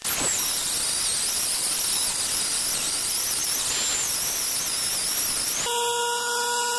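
Air-powered die grinder with a cone-shaped burr cutting the aluminum exhaust ports of a VW 1.8T 20-valve cylinder head: a loud hiss with a high whine that wavers as the tool is kept moving. About a second before the end the cutting noise stops, and the grinder spins free with a steady whine.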